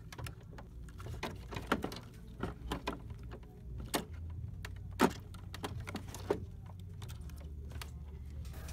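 Irregular plastic clicks and rattles as the printhead of an HP OfficeJet 7612 is lifted out of its carriage by hand. The sharpest clicks come about four and five seconds in, over a steady low hum.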